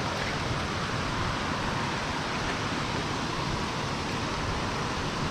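Steady rushing of a mountain stream, an even water noise with no break.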